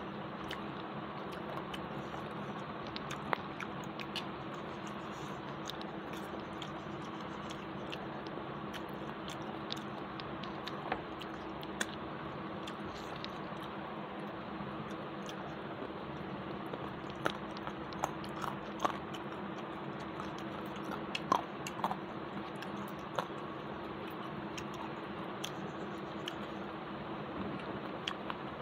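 A person eating rice and curry by hand: chewing and mouth sounds with scattered sharp clicks, bunched together in the second half, over a steady background hum.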